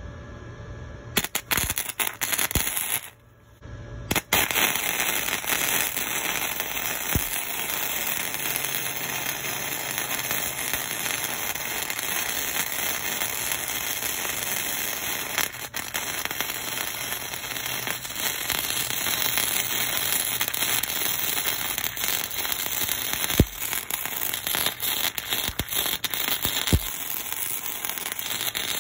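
Stick-welding arc crackling and sizzling as the electrode burns onto a steel plate. A low hum comes first, then the arc catches in a few short starts about a second in, drops out briefly, and runs steadily from about four seconds in.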